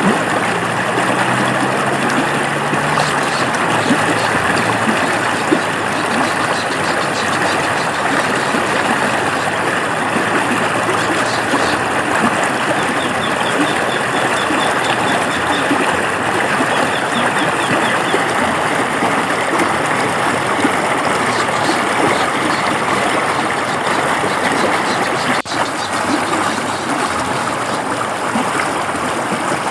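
River water flowing and babbling in a steady, dense rush. A faint low drone sits under it for the first few seconds, and faint rapid high chirps come in around the middle and again near the end.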